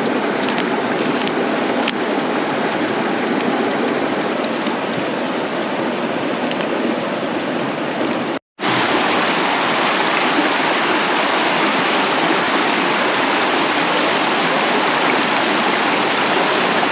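Shallow river rushing over stones and rapids, a steady, loud rush that breaks off for an instant about eight seconds in.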